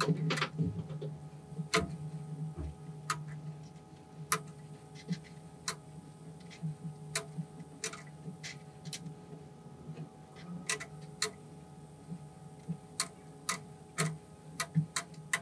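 Plastic colour caps of a Farnsworth D15 colour arrangement test clicking as they are set down and slid one by one into a plastic holding tray. The sharp clicks come irregularly, about one every second.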